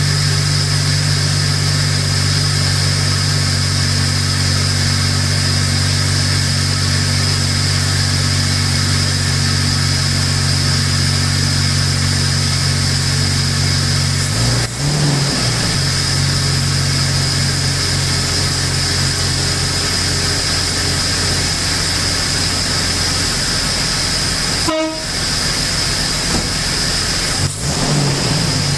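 Jeep Wrangler TJ engine idling steadily with a low, even drone, just started on its newly installed battery. The drone briefly breaks about halfway through and again near the end.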